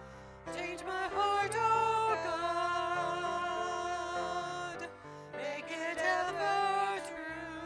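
A small group of singers sings a slow, sustained worship song over piano accompaniment. The voices come in about half a second in, pause briefly around five seconds, then carry on.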